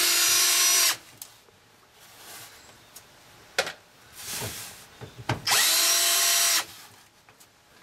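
DeWalt cordless drill/driver backing out the screws of a VW Westfalia pop-up roof's aluminium canvas strip, in two short runs of about a second each. The first is already going and stops about a second in; the second starts about five and a half seconds in, winding up to a steady whine. A few clicks and knocks come in between.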